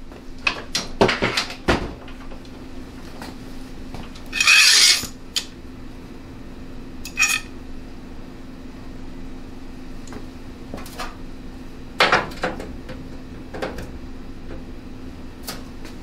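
Metal clinks, knocks and a short scrape as a flat metal bar and bar clamps are handled and set in place across an aluminium radiator, loudest around four and a half seconds in. A steady low hum runs underneath.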